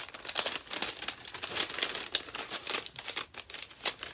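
Paper packaging being unwrapped by hand, crinkling and rustling in a quick, irregular run of crackles.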